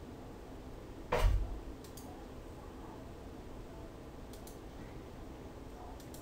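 A single dull thump about a second in, then a few faint, sharp clicks of a computer mouse over quiet room tone.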